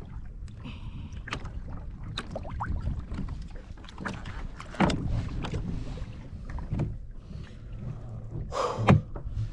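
Water and wind noise on a fishing kayak, a steady low rumble, broken by a few sharp knocks and thuds on the boat. The loudest come about five seconds in and just before the end.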